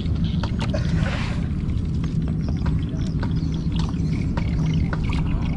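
A steady low motor hum, with scattered light clicks and a brief hiss about a second in.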